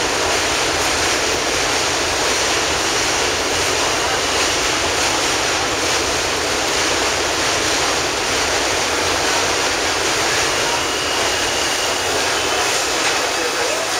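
Steady rushing noise beside a standing R68 subway train with its doors open, with no distinct knocks or calls; a faint high tone creeps in near the end.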